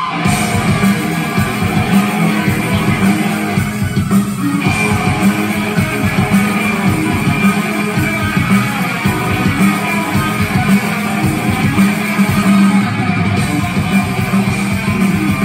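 Live rock band playing loudly, heard from the audience: electric guitar lead over bass guitar and drums.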